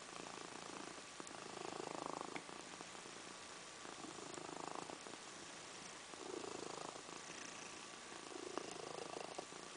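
Sleeping cat snoring faintly, four snoring breaths a little over two seconds apart.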